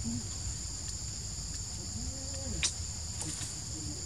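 Steady high-pitched insect chorus in jungle undergrowth, droning without a break, with one sharp click a little past halfway.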